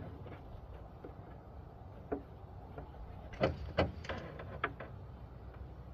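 A few light clicks and knocks, the sharpest two about three and a half and four seconds in, over a faint steady low hum: handling during an engine oil top-up and dipstick check.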